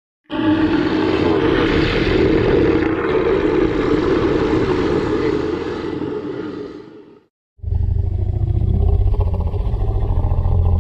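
Two Tyrannosaurus rex roar sound effects, one after the other. The first is a long roar that fades away after about seven seconds; after a brief gap a second, lower-pitched roar starts.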